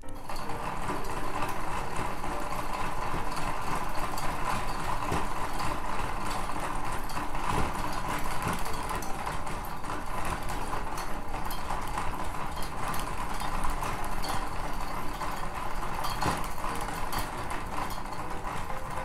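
Daiichi Seiko high-speed line recycler hand-cranked steadily at speed, its geared spool spinning as it reels in fishing line: a continuous mechanical whir.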